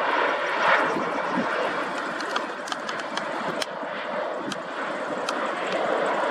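Jet engine noise of a Boeing 787-8 airliner landing, a steady rushing sound as it touches down on the runway, with a few faint sharp clicks.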